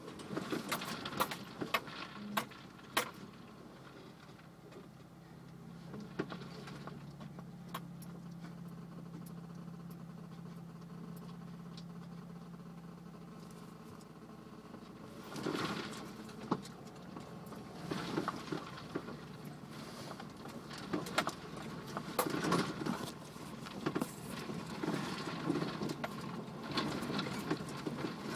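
4x4's engine running low and steady, heard from inside the cabin as it crawls over a rough rocky trail. Frequent knocks and rattles from the body and loose items jolting over the bumps, bunched in the first few seconds and through the second half.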